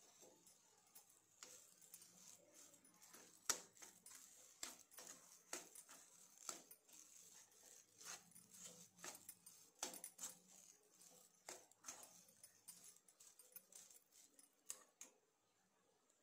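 Faint, irregular clicks and scrapes of a steel spoon against a non-stick pan as a mashed potato filling is stirred and pressed, about one or two strokes a second, stopping shortly before the end.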